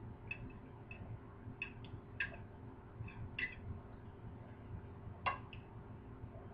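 Faint eating sounds close to the microphone: scattered soft clicks of chewing and of a fork on a plate, the sharpest about five seconds in.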